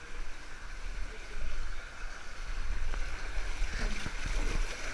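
Water running down a water slide's start chute, a steady rush that grows louder about three and a half seconds in as the rider enters the tube, with splashing and a few short knocks.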